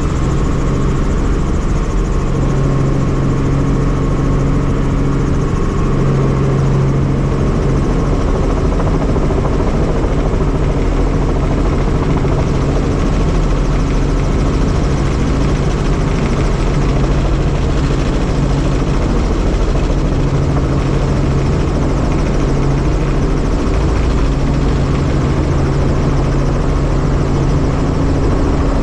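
Helicopter engine and rotor running steadily: a constant loud drone with a low, unchanging hum.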